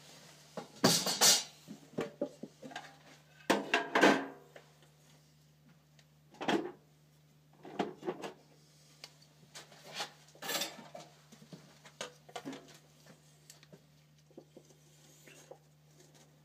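Thin sheet-metal tin and a cut piece of it knocking and clattering as they are handled, with two loud clanks about one and four seconds in, then lighter scattered knocks.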